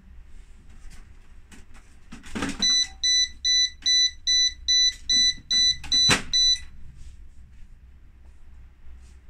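Tefal dehumidifier beeping: about eleven short, evenly spaced high-pitched beeps over four seconds, while its plastic water tank is pulled out with some clattering and a sharp knock.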